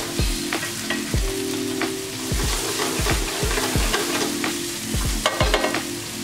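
Minced onion sizzling in oil in a frying pan, stirred and scraped with a spatula, with a few quick clicks about five seconds in. Background music with a steady beat plays underneath.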